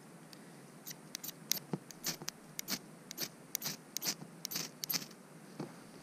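Ferrocerium fire steel scraped hard with its striker, a quick irregular run of sharp rasping strokes, several a second, stopping about five seconds in. The strokes throw sparks into lichen tinder dabbed with gel fire starter, trying to light it.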